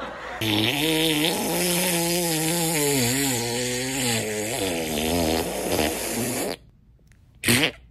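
A long, loud fart sound lasting about six seconds, its pitch wobbling up and down before it cuts off suddenly, followed by a second short blast near the end.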